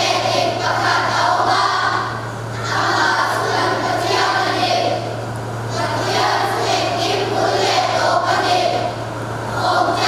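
A children's choir singing together in phrases of about three seconds, with short dips between them for breath, over a steady low hum.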